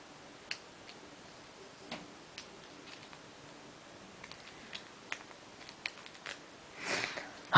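Scattered small clicks and ticks of hard plastic as a small Beyblade part is pried out of its clear plastic packaging, coming more often in the second half, with a short louder rustle near the end.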